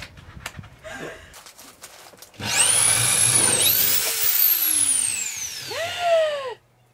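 A few light knocks, then a corded electric power tool runs loud, its motor whine sweeping up high and then sliding slowly down in pitch, with a couple of quick up-and-down changes in speed before it cuts off suddenly.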